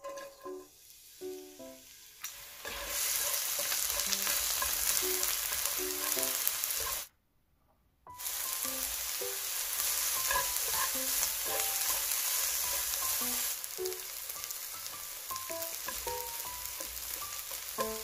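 Sliced onion and Spam strips sizzling in oil in a nonstick frying pan. The sizzle starts about two and a half seconds in, drops out for about a second near the middle, then carries on to the end.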